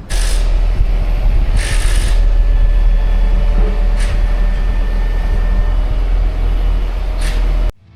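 Truck hauling a loaded trailer down the road: a loud steady rumble of engine and road noise, with short hissing rushes near the start, about two seconds in and near the end. The sound cuts off abruptly just before the end.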